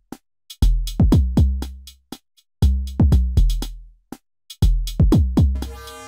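Elektron Model:Cycles FM groovebox playing a looped electronic beat. Each two seconds brings a cluster of kick-like hits that drop in pitch over a low bass, followed by a short silent gap. A held synth chord comes in near the end.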